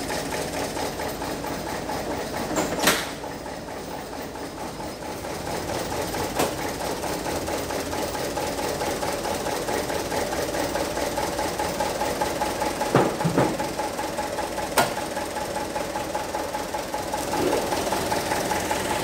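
Truck diesel engine idling steadily with the ignition key already switched off, a fault in which the engine won't shut down from the key. A few sharp metallic clunks come as the cab is tilted forward.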